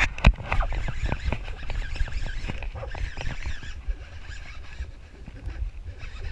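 Handling noise of a body-mounted camera as an angler casts and then winds a baitcasting reel right by the lens. Two sharp knocks come at the start, then a steady low rumble with many small clicks and rubbing sounds from the reel and hands.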